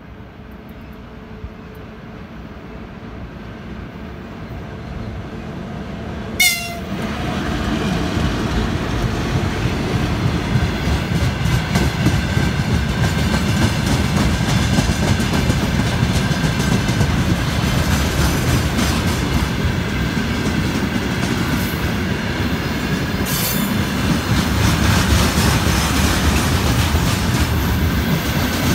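A VL10U electric locomotive hauling a freight train approaches and grows steadily louder, and about six seconds in it gives one short, loud horn blast as it reaches the platform. The freight wagons and tank cars then roll past with a steady rumble and wheels clacking over the rail joints.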